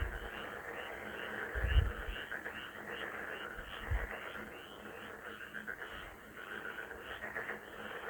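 Chorus of frogs calling: short calls repeating about three times a second over a dense background of croaking, with a couple of brief low thumps about two and four seconds in.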